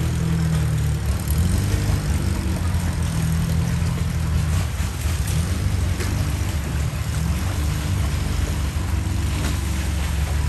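Motorboat engine running at a steady speed, a low, even drone.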